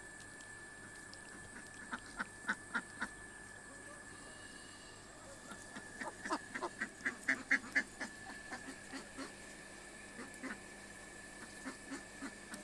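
Domestic ducks quacking in short runs of calls: a quick series about two seconds in, a longer, louder flurry around six to eight seconds in, then scattered single quacks.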